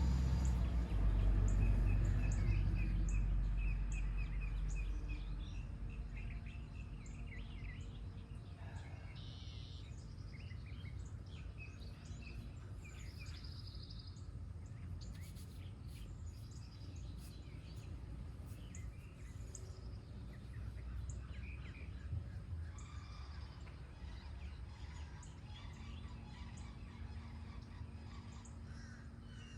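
Several wild birds singing and chirping, with one bird giving a quick run of repeated notes near the start. Under them is a low rumble that fades over the first several seconds.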